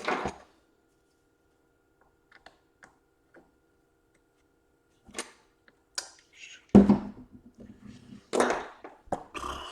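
Laptop casing and tools being handled on a workbench during disassembly. A short noisy burst stops right at the start, then come a few light ticks and, from about five seconds in, several sharp knocks and clicks, the loudest about seven seconds in.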